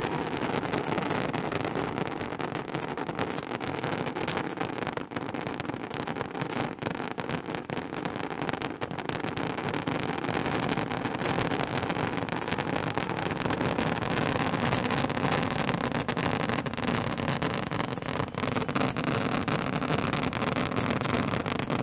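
A dense barrage of daytime firework rockets bursting overhead, many bangs and crackles overlapping into one unbroken din.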